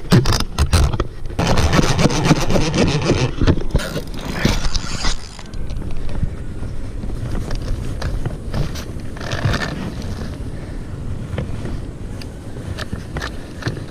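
A spinning reel cranked under the heavy load of a large catfish, grinding and crackling with rapid clicks. It is loudest in the first few seconds and eases after about five. The reel is broken, and the angler takes the cracking for a dry, failing bearing.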